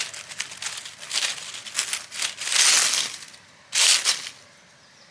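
Close rustling and crackling of dry forest litter and moss being disturbed, with two louder bursts of crunching about two and a half and nearly four seconds in.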